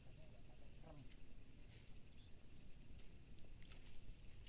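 Night insects calling: a steady high-pitched trill, with a second insect's chirp pulsing about four times a second.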